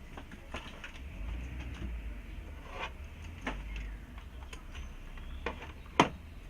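A few scattered sharp clicks and knocks over a low steady hum, with one much louder knock about six seconds in.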